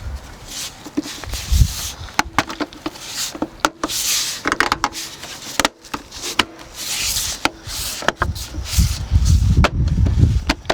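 Plastic interior trim panels being handled and pressed into place: scattered sharp clicks and knocks of clips seating, with rubbing and scraping of plastic, and a run of heavier thumps near the end.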